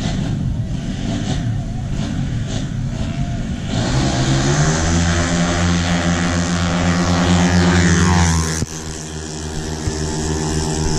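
Yamaha Mio drag-racing scooters at full throttle: a hard, high-revving engine note builds and climbs steadily in pitch for several seconds. About three-quarters of the way through it drops abruptly to a lower, steadier drone.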